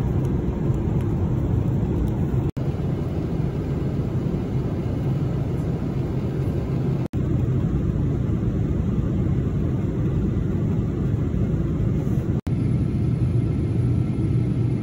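Steady low rumble of airliner cabin noise from a Boeing 777-300 in flight, from the engines and airflow. Three very brief dropouts break it where clips are joined.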